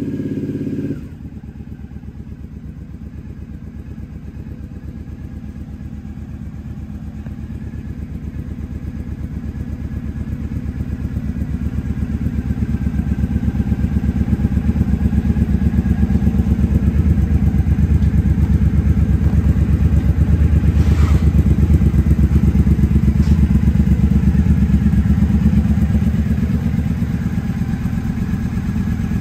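Triumph America 865cc parallel-twin engine idling with an even, rapid exhaust pulse. After a sudden drop in level about a second in, it grows louder over the next dozen seconds, then eases slightly near the end.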